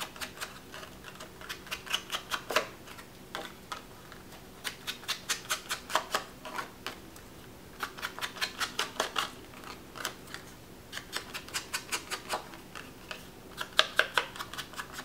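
Inked foam sponge swiped along the edges of a piece of cardstock: quick short strokes, about four a second, in runs of a second or two with short pauses between.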